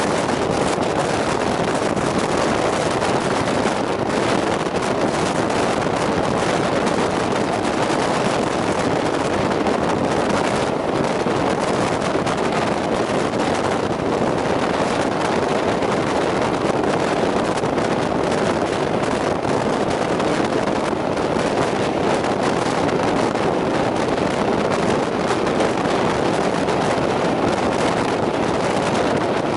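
Steam-hauled train running through a tunnel: a steady, loud roar of the train echoing off the tunnel walls, heard from an open carriage window with wind buffeting the microphone.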